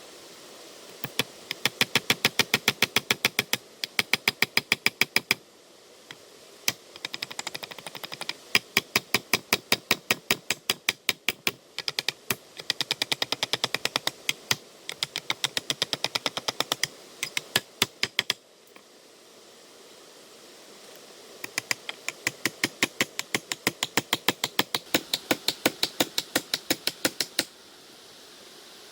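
Rapid, evenly spaced sharp knocks, about five a second, in long runs of several seconds separated by short pauses.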